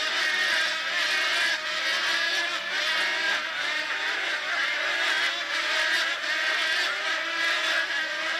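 A large colony of wood storks calling: a steady, unbroken din of many overlapping calls.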